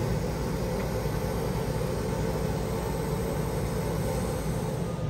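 Laser cutter running while it cuts pre-taped acrylic: a steady rush of air from its exhaust blower and air assist over a low hum.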